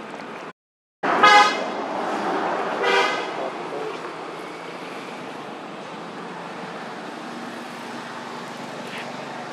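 Two short vehicle horn toots, about a second and a half apart, over steady outdoor background noise. The sound drops out completely for half a second just before the first toot.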